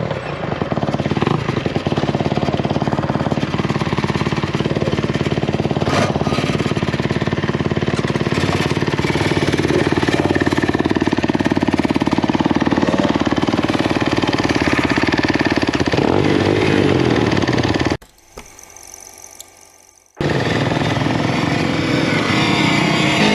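Rapid, dense rattling and buffeting of a home-built electric dirt bike being ridden fast over rough dirt, heard from on board. The 12 kW hub motor itself is almost silent under it, and the bike chatters over every bump. The noise drops away for about two seconds near the end, then comes back.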